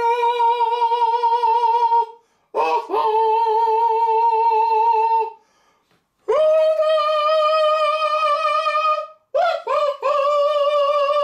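A man's voice singing long, high held notes with vibrato, each a couple of seconds long, with short breaks for breath between them. The later notes are pitched higher than the first ones.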